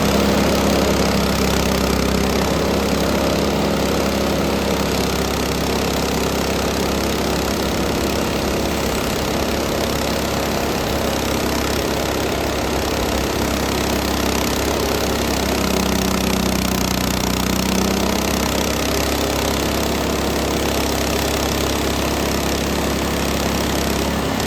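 Frontier OS18 portable bandsaw mill running steadily, its small gasoline engine driving the band blade through a black walnut branch to cut a slab.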